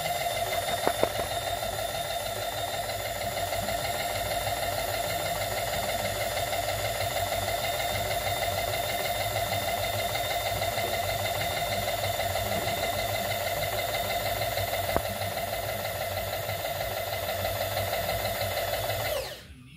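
Bridgeport-type power feed unit driving a milling machine's knee along the Z axis: a steady, loud motor-and-gear whine with a few light clicks. It cuts off suddenly near the end as the feed is switched off.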